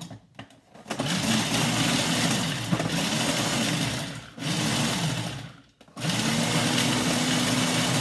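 Food processor pulsed three times, chopping dried cranberries; the motor's pitch rises as it spins up and falls as each pulse ends. A few knocks come in the first second.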